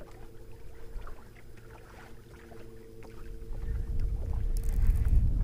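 Steady hum of a fishing boat's electric trolling motor. About three and a half seconds in, a low rumble of wind on the microphone builds up and covers it.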